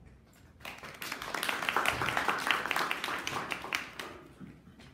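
A small group applauding, hand claps starting about half a second in and dying away near the end.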